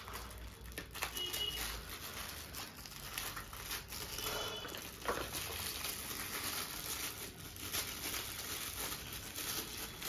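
Rustling and crinkling handling noise, with scattered small clicks and knocks, as small items are picked up and handled. Two faint short high tones sound about a second in and again about four seconds in.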